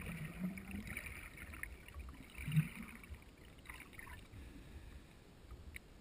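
Muffled water sloshing and swishing, heard through an underwater camera, in a few surges. The strongest comes about two and a half seconds in, with faint clicks here and there, and it settles quieter near the end.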